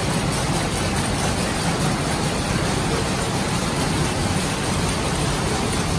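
Jacquard power looms running: a steady, dense mechanical clatter that does not let up.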